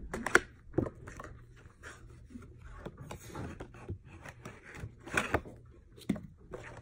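A Jenga box being handled and opened, with cardboard and plastic packaging rustling and tearing. Irregular sharp clicks and knocks run through it, the loudest about half a second in and a few more around five seconds in.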